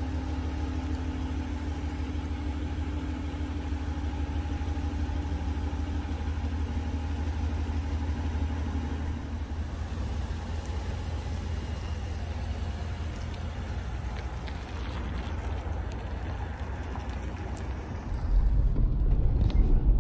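2019 Ram 1500 Laramie pickup idling steadily after a remote start, a low even hum. About two seconds before the end, a louder low rumble of a car driving on the road, heard from inside the cabin, takes over.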